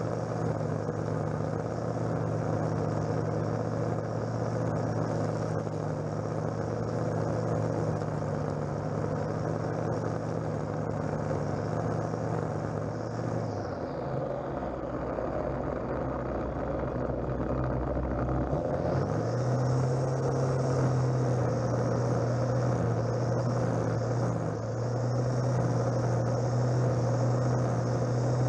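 A string trimmer (strimmer) is running at full speed, cutting grass and weeds along a lawn edge. About halfway through it eases off to a slower, lower run for roughly five seconds, then speeds back up.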